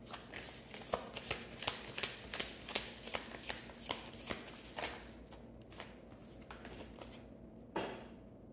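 A deck of tarot cards shuffled by hand: a quick, uneven run of card clicks and slaps for about five seconds, then a quieter stretch and one more card snap near the end.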